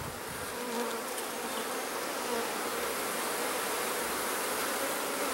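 Many honeybees buzzing steadily in flight around an opened hive, a continuous hum of wings.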